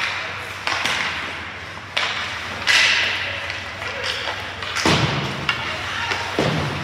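Ice hockey game sounds: about half a dozen sharp knocks and cracks of sticks and puck striking the boards and ice, each one echoing around the rink.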